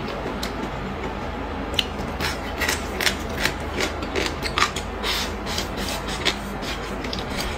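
A person chewing a mouthful of stir-fried vegetables close to the microphone, with many small wet clicks and crunches from about two seconds in, over a steady low hum.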